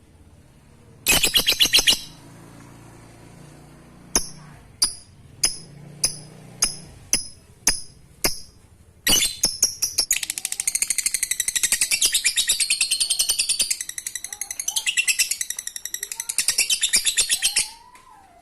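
Lovebird (Agapornis) calling: a short rapid chatter, then a run of sharp single chirps about two a second, then a long unbroken rapid chattering trill, the 'ngekek' song, lasting about eight seconds before it stops near the end.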